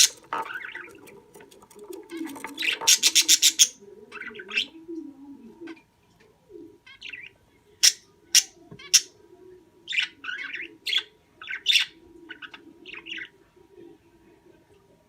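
Budgerigar chirping and chattering: a string of short, sharp chirps with a fast rapid-fire run about three seconds in, over a softer low warble.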